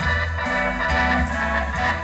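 A live band playing amplified music, with sustained held chords over a pulsing bass line.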